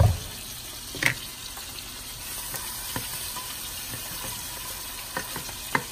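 Steady sizzling of chopped onion and garlic frying in butter and olive oil in a stainless steel pot, with fish frying in the pan beside it. A knock comes at the start, and a spoon clicks against the pot about a second in and again near the end.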